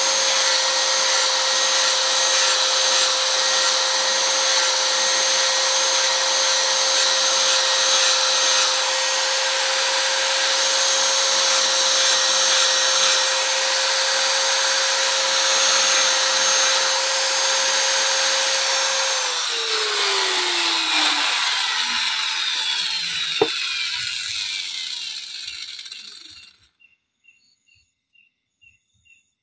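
Angle grinder with a sanding disc running at a steady pitch against a piece of sonokeling root wood. It is switched off about two-thirds of the way in, and its pitch falls as it spins down, with one sharp click midway. Faint, evenly repeating insect chirps follow once it stops.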